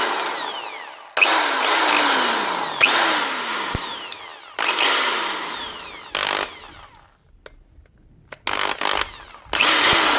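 Metabo SBE 650 drill's motor started in repeated short bursts, each time spinning up sharply and then winding down with falling pitch, about six times. The switch is broken.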